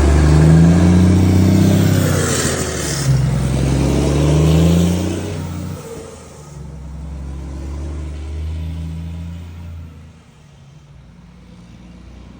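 Volvo FH truck's straight-six diesel rumbling through a Giacomeli exhaust. The engine pitch climbs, drops sharply about three seconds in, climbs again, then falls away to quieter low running with a further drop near the end.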